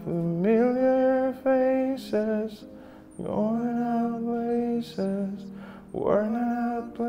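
A song excerpt playing: a singing voice holds slow, long notes, each sliding up into its pitch, in two phrases of a few notes with short breaks between them.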